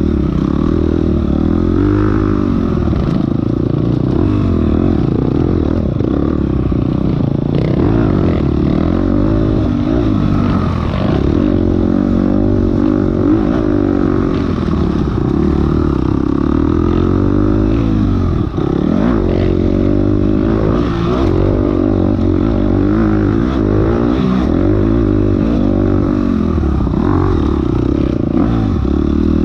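Off-road enduro motorcycle engine revving up and down over and over as it is ridden hard through the test, the pitch climbing and falling every second or two, with one brief sharp drop near the middle.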